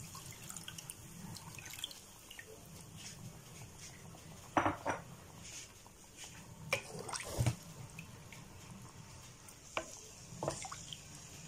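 Coconut milk pouring into a pan of chicken curry for about the first two seconds, then a few scattered clinks and knocks of a bowl or spatula against the pan.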